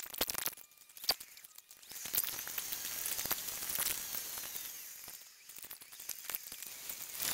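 In-car driving noise played back greatly sped up: road and engine noise turned into a high, crackly hiss broken by many quick clicks and sudden jumps in level.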